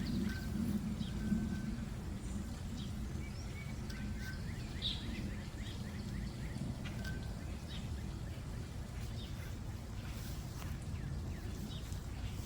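Outdoor ambience: birds chirping faintly here and there, short whistled notes and quick chirps, over a steady low background rumble.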